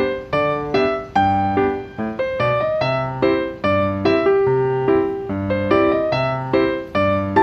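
Background piano music: a light, steady melody of chords struck at an even pace, each fading away.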